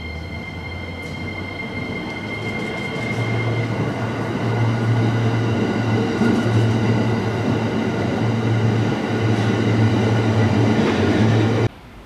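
JR East E231-series electric train running past close by along the platform, growing louder as it nears, with a steady high whine over the first few seconds. The sound cuts off suddenly near the end.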